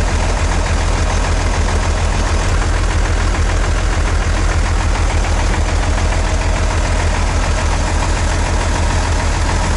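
Vehicle engine running steadily: a loud, constant low drone with no change in speed.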